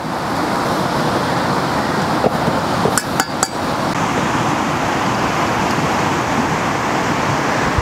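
A few sharp clinks and knocks of hard cookware being handled, clustered about two to three and a half seconds in, over a steady rushing background noise.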